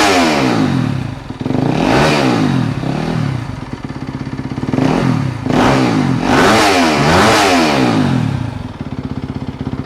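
Yamaha YZ250FX's 250 cc single-cylinder four-stroke engine revving through its stock factory exhaust, the revs rising and falling again and again. It settles to a pulsing idle near the end.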